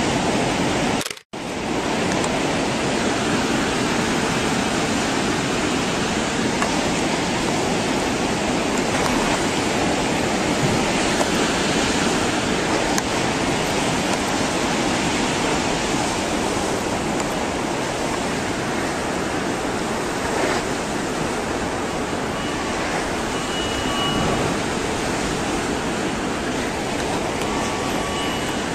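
Loud, steady rushing noise like churning water, with a brief cut-out about a second in. Faint beeping tones sound a few times near the end.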